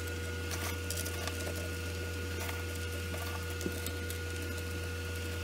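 A steady low hum with two faint thin tones above it. Scattered light clicks of pea gravel stones being set around a shower drain.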